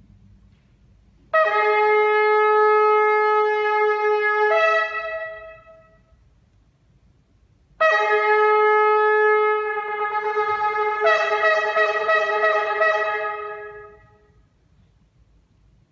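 A long curled shofar sounding two long blasts, the first of about four seconds and the second of about six. Each blast breaks up to a higher note partway through, then fades away in the hall.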